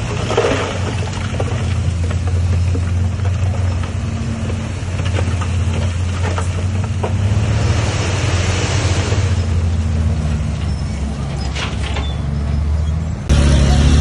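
Heavy diesel engine of a bulldozer running steadily under load, with a few metallic clanks. The engine sound changes abruptly near the end.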